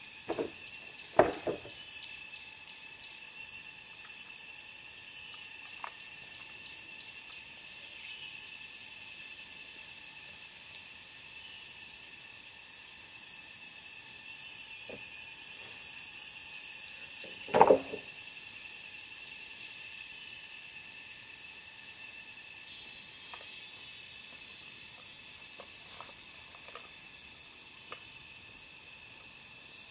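Long wooden poles dropped onto bare dirt: a short clatter of knocks about a second in and another around two-thirds of the way through, over a steady high background hiss.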